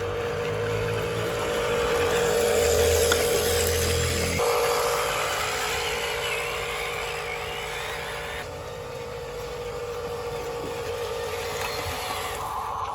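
Small motor of a toy construction vehicle running with a steady warbling whine over a hiss. The sound changes abruptly twice, about four and eight seconds in.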